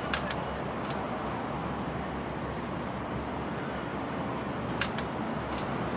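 Several sharp camera shutter clicks, two close together near the start and two more near the end, with a short high camera beep about two and a half seconds in, over a steady outdoor crowd hum.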